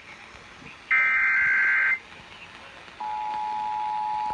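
Emergency Alert System signal: the last of the screeching SAME data header bursts, about a second long, then after a short gap the steady two-tone EAS attention signal begins about three seconds in.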